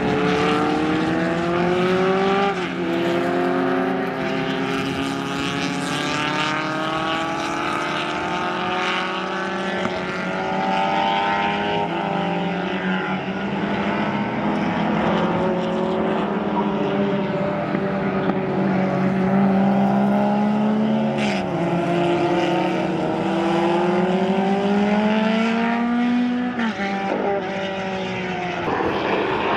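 Racing car engines running hard, several at once, their pitch climbing slowly and dropping sharply now and then, as at gear changes, around twenty seconds in and again about six seconds later.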